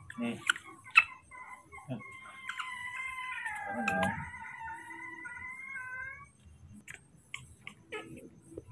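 A baby macaque gives one long, wavering cry of about four seconds that dips in pitch midway and rises again, after a few sharp clicks in the first second.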